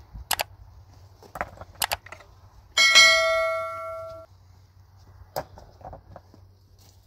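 A few sharp knocks, then a single clang of struck metal that rings with several tones for about a second and a half before cutting off, followed by another knock.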